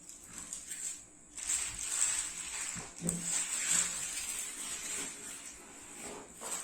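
Rustling and handling of packaging, plastic wrapping and box contents being pulled out, starting about a second and a half in and dying down near the end, with a few light knocks.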